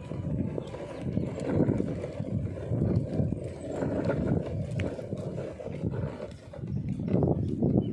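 Wind buffeting the microphone: a low, uneven rumble that swells and fades in gusts.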